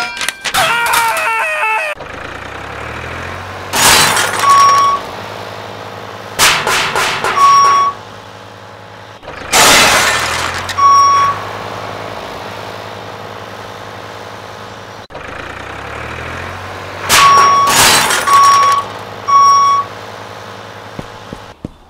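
Added sound effects for a toy front loader: a heavy-machine engine runs steadily, with loud crashes in four groups and short steady beeps after each. A warbling tone glides up and down before the engine starts.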